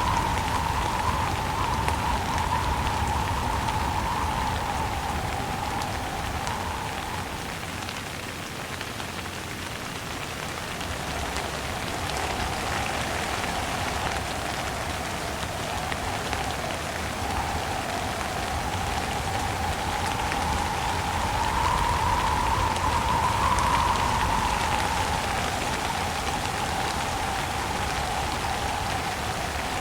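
Steady heavy rain with gusting wind, the wind's wavering whistle rising and falling in pitch. It eases off about a third of the way in and swells loudest about three quarters through.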